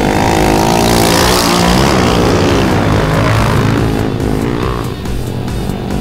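Several small 125cc motorcycle engines (Honda Grom class) revving up and down as the bikes ride past on a dirt track, their pitch rising and falling through the whole stretch.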